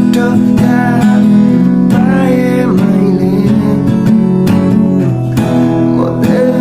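Song music in an instrumental passage, led by guitar with strummed acoustic guitar.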